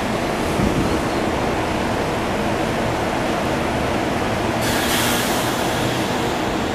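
SEPTA Silverliner V electric commuter train running steadily on the rails as it pulls out of the station, with a higher hiss joining about two-thirds of the way through.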